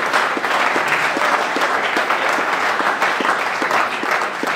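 Audience applauding: dense clapping from many hands, steady throughout.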